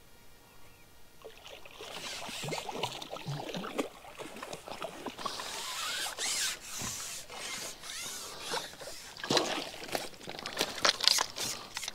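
Irregular splashing and rustling with sharp clicks and knocks, starting after a second or two of quiet, as a hooked fish is played in the margin.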